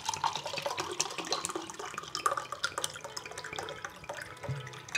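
Water running from a tap and splashing, with many small irregular splashes and drips.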